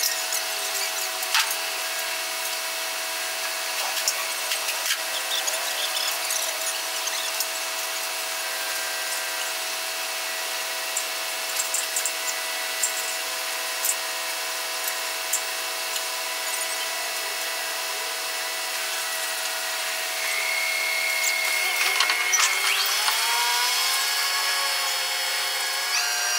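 Steady mechanical whine of heavy construction machinery, with scattered clicks and knocks. About 20 seconds in it grows louder, and rising whines follow a couple of seconds later.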